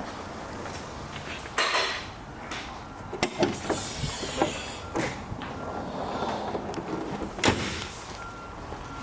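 A door being worked: a few clunks and clicks, a short hiss, then one sharp bang about three-quarters of the way through. A vehicle's reversing alarm beeps faintly in the second half.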